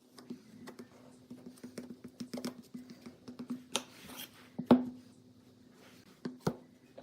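Light clicks, taps and clatter of tools and wood being handled, with one louder knock a little past the middle, over a steady low hum.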